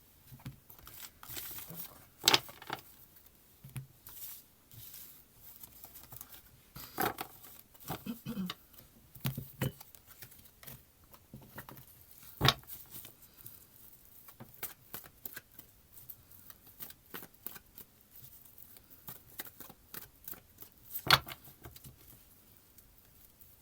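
Tarot cards being handled on a table: soft rustling and light taps, with three sharper slaps of a card about two, twelve and twenty-one seconds in.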